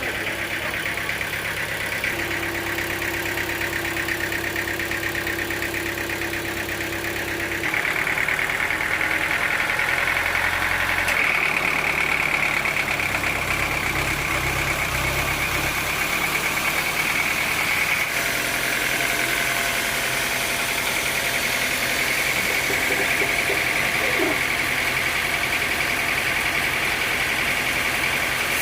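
Engine running steadily, its note shifting about 8, 11 and 18 seconds in.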